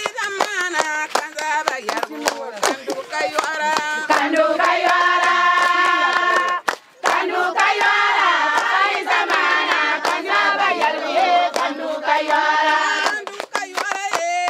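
A group of voices singing together over rhythmic hand clapping, with a brief break in the sound about seven seconds in.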